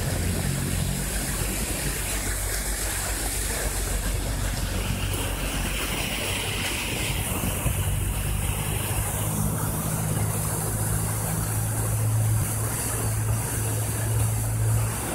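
Floodwater rushing along a street in heavy rain, a steady noisy wash. A vehicle engine hums low underneath and gets stronger about halfway through.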